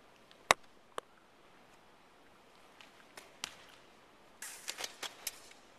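A volleyball and a player's shoes on a hardwood gym floor: a sharp slap of the ball about half a second in, a lighter knock a moment later, two more knocks past the middle, then a quick flurry of taps and scuffs near the end.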